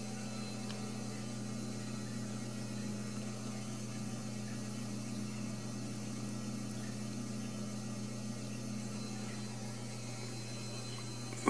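A steady low electrical hum at an even level throughout.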